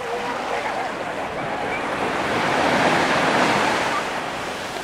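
Sea waves breaking on a sand beach: a wash of surf swells to its loudest about three seconds in, then eases off as the water runs back.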